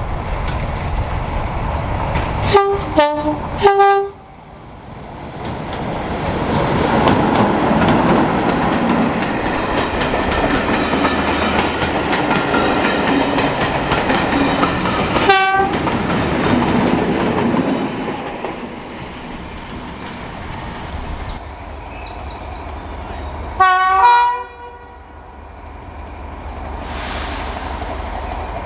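Class 33 diesel locomotive sounding its two-tone horn in three short blasts for a level crossing, then passing by, its engine and running noise rising about five seconds in and fading after eighteen. Another short horn blast comes about halfway through and a longer two-note horn call near the end.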